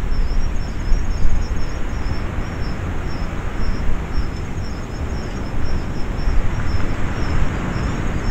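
Outdoor field ambience: low wind rumble on the microphone, with an insect chirping in a fast, even rhythm high above it throughout.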